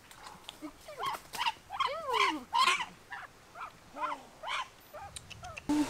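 A quick run of short pitched animal calls, two or three a second, some arching up and down and some falling in pitch. A steady hiss comes in near the end.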